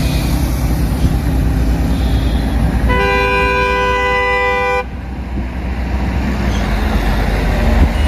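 Steady road noise from a car driving along the highway. A vehicle horn sounds in one steady blast of about two seconds near the middle, then cuts off abruptly.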